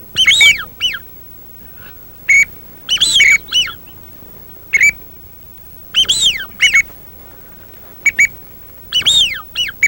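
Duck whistle call blown in short series of falling whistled notes, a group every one to two seconds, to lure ducks toward the blind.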